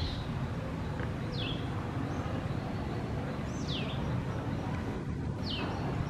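Three short, high-pitched chirping calls, each sliding downward, about two seconds apart, over a steady low background rumble.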